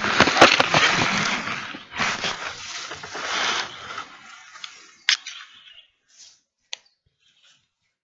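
Rustling and handling noise close to the microphone as the handheld camera is swung down among tall grass, loud for the first half and ending about four seconds in. A few sharp clicks follow, one about five seconds in and one near seven seconds.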